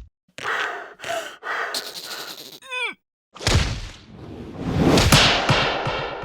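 Cartoon slapstick sound effects: two short noisy swishes, a quick falling pitched squeal, then a rush of noise that swells to loud about five seconds in.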